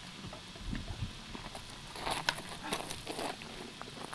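Shoes scuffing and crunching on loose slate gravel: scattered small clicks and crunches, thickest in the middle of the stretch.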